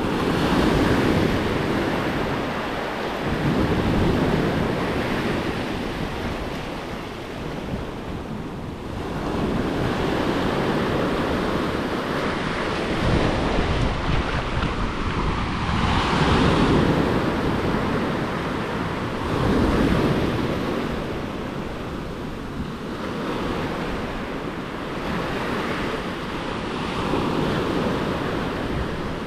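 Small ocean waves breaking and washing in over a flat rock shelf, surging and draining back every few seconds, with wind rumbling on the microphone.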